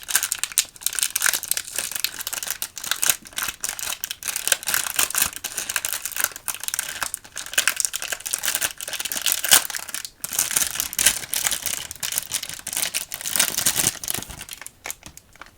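Packaging being handled and unwrapped close to the microphone: a dense, continuous crinkling and crackling, easing off near the end.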